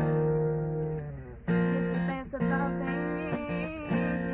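Strummed acoustic guitar accompanying a teenage girl's singing. A chord rings and fades, the strumming comes back in about a second and a half in, and her voice returns over it soon after.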